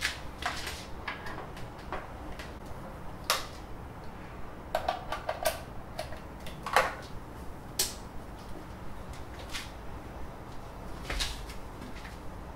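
Handling noise as a 3D printer's power cable is connected and plugged in: a dozen or so irregular light clicks and knocks, the loudest about seven seconds in.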